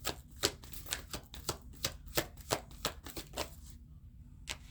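Oracle cards shuffled by hand: a quick run of sharp card snaps and slaps, about three or four a second, easing off near the end.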